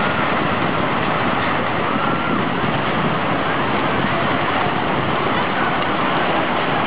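Tsunami floodwater surging through a residential area, a steady loud rushing of water carrying wreckage, with a faint wavering tone above it in the first few seconds.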